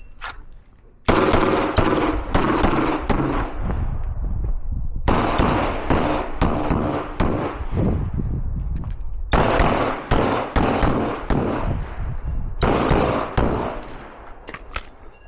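Pistol fire in a timed shooting stage: rapid shots starting about a second in, in four strings a few seconds long with short pauses between them, plus a few last shots near the end.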